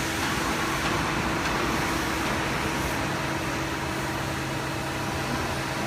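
Steady machinery hum with a low, unchanging drone, typical of a hydraulic press brake's pump and motor running, with no distinct bending stroke or impact.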